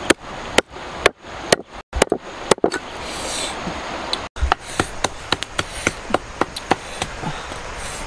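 Cleaver chopping pieces of snake on a wooden chopping block: a steady run of sharp knocks, about two to three a second.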